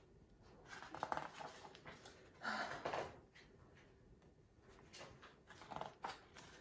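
Faint rustling of paper as a picture book's pages are handled and turned, with a brief louder breathy sound about two and a half seconds in.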